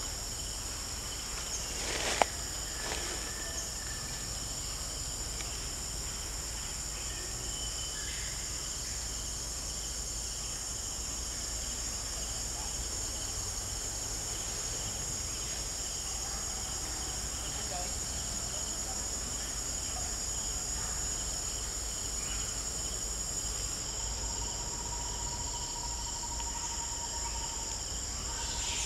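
Steady chorus of forest insects, several high-pitched tones droning without a break. A single sharp click sounds about two seconds in, and a lower steady whine joins near the end.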